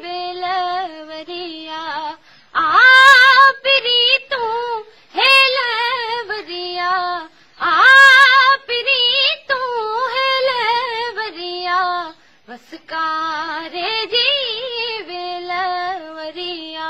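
A high solo voice singing a folk song in long, ornamented phrases with wavering pitch, broken by short pauses between lines.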